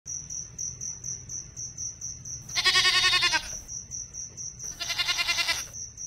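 Two goat bleats, each just under a second long, with a trembling pitch. Behind them a thin, high chirp repeats about four times a second.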